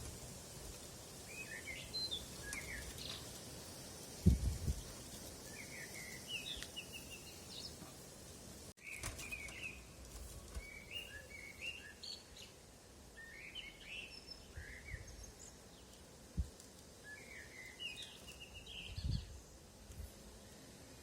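Small songbirds singing, a short run of chirping notes repeated every couple of seconds over a steady outdoor hiss. A few dull low thumps break in, the loudest about four seconds in.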